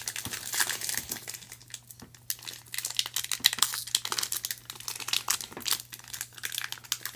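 Foil wrapper of a 2019 Score football trading-card pack crinkling irregularly as it is handled and pulled open.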